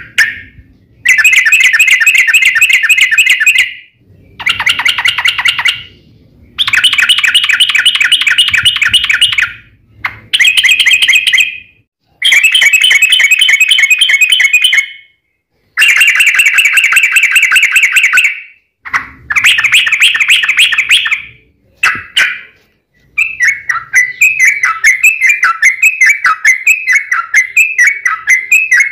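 Yellow-vented bulbul (trucukan) singing its fast, chattering 'fighting' song in loud bursts of two to three seconds with short gaps between them. Near the end it gives a longer run of quick repeated notes.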